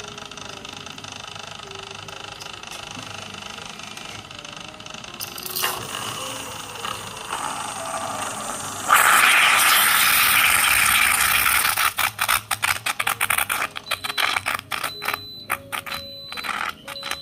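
SEVEN&ME moka-style coffee maker brewing. From about five seconds in, coffee rises hissing and gurgling up the central column; about nine seconds in it turns to a loud steady hiss, then breaks into crackling and spitting as the last of the water is pushed through, the sputter that marks the end of a moka brew.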